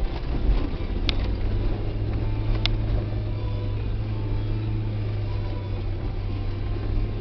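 Car engine running steadily with tyre and road noise, heard from inside the cabin while driving along a snow-covered track. Two short sharp clicks about a second in and again about two and a half seconds in.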